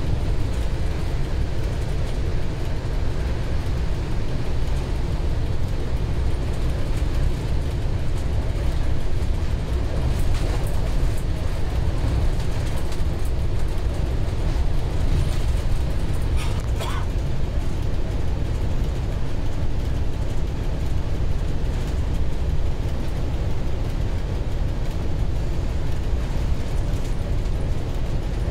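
M62 diesel locomotive's two-stroke V12 engine running steadily under power at about 100 km/h, heard from inside the cab together with the wheels running on the rails. There is a brief clicking about halfway through.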